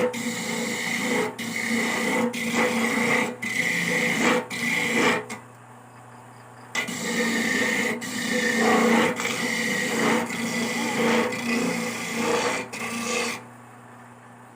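Coconut meat being scraped on a hand coconut grater (kudkuran) in repeated rasping strokes, about one a second. There is a short pause in the middle, and the scraping stops near the end.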